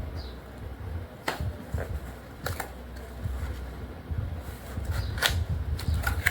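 Irregular clicks and rustling from a Dell KB216 keyboard and its packaging being handled, over a low rumble of handling noise.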